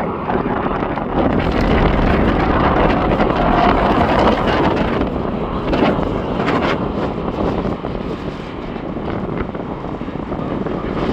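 Steady jet engine noise from a Boeing 737 airliner, mixed with wind buffeting the microphone; it eases off slightly in the second half.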